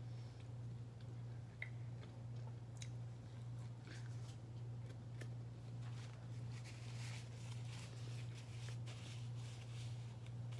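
Close-miked chewing of a breadstick, with small mouth clicks, over a steady low hum. In the second half, paper napkin rustling as hands are wiped.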